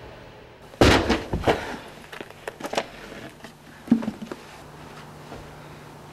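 Several knocks and thuds of books and small objects, loudest about a second in, with lighter knocks following and another thud near four seconds: books being picked up off a carpeted floor and handled at a wooden desk.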